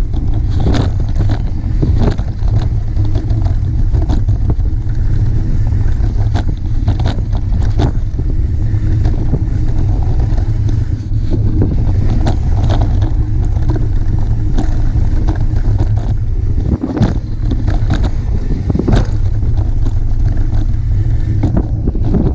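Wind rumbling on the microphone of a camera mounted on a mountain bike descending a dirt trail fast, with the tyres on loose dirt and rock and frequent knocks and rattles from the bike over bumps.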